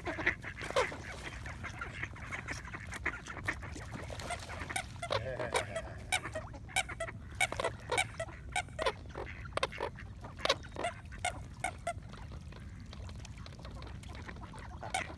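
A crowd of ducks and swans being fed by hand, calling with many short, rapid calls, several a second, as they jostle and squabble over the food.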